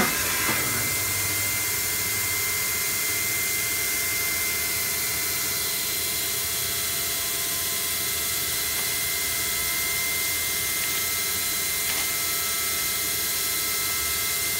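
Chevalier QP2033-L CNC vertical machining center running: a steady high whine over an even hiss, holding one pitch throughout.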